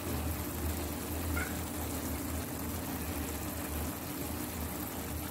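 Tomato gravy simmering in a frying pan over a steady low hum. A brief faint high squeak comes about a second and a half in.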